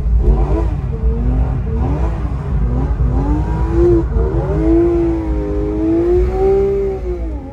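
Porsche 911 GT3 RS's naturally aspirated flat-six being revved hard, its pitch rising and dropping several times, then held higher for a few seconds before falling away at the end.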